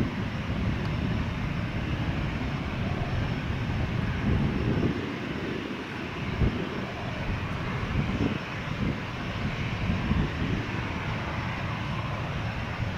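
An airliner's engines, heard as a steady, dense rumble that is heaviest in the low end and does not clearly rise or fall.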